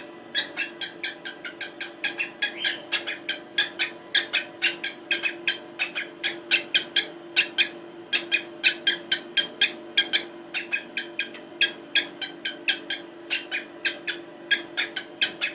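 Female cockatiel giving a rapid, even series of short high chirps, about four to five a second, her mating-solicitation call while hormonal and asking for a male.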